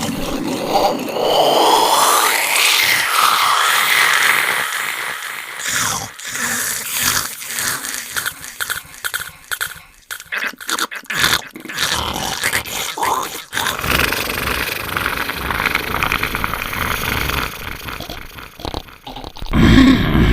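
Distorted, processed horror sound effects of the 'sickly demonic alien' kind: a harsh hissing texture with wavering pitch glides in the first few seconds, then a choppy stretch of rapid crackling clicks and brief dropouts in the middle. A steadier hiss follows, and a louder low burst comes near the end.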